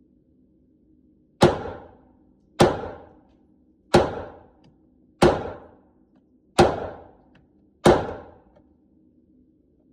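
Six shots from a 9mm Glock 19 pistol fed from a 31-round ProMag magazine, fired one at a time about every 1.3 seconds, each followed by a short echo.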